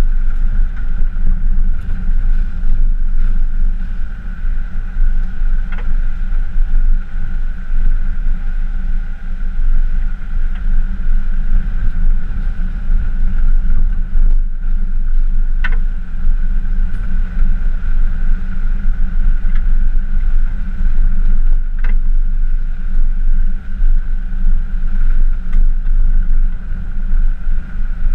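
A pickup truck towing an off-road trailer along a dirt forest track, heard from a camera mounted on the truck: a steady low rumble of engine, road and wind noise, with a few short sharp knocks.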